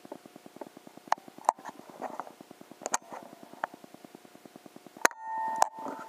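Air rifle shot about five seconds in: one sharp crack, followed at once by a short squeal. Before it runs a fast, even ticking with a few scattered clicks.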